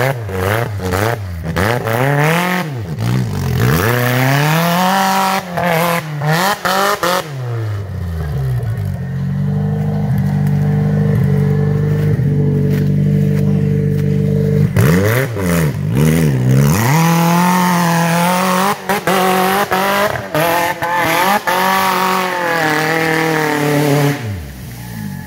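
Off-road tube-frame buggy's engine revving hard in repeated rising and falling bursts as it climbs a steep dirt hill, holding a steady high pitch for several seconds in the middle, with scattered knocks and clatter.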